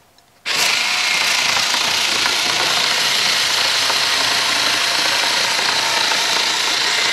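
Blue Ridge rechargeable rotary cutter running, its powered blade slicing through corrugated cardboard. It starts about half a second in and runs at an even level with a steady buzzing whir.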